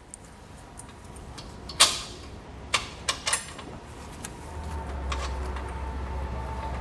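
A few scattered metallic clicks and knocks of bolt hardware being handled as washers and hex nuts are started by hand on the base plate bolts; the sharpest knock comes about two seconds in. A low steady hum comes in about halfway through.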